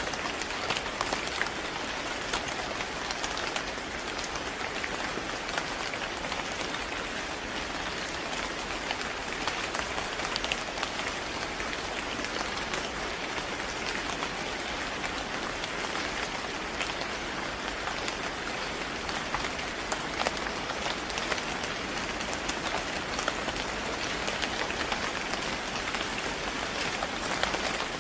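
Steady rain falling, an even hiss dotted with many small, sharp drop hits.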